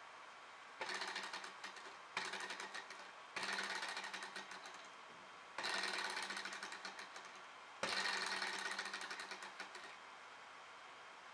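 Small model hot-air Stirling engine's flywheel, pistons and crank clattering in quick, fine clicks, in five short runs that each start suddenly and die away over a second or two, as the flywheel is spun and runs down without the engine keeping itself going.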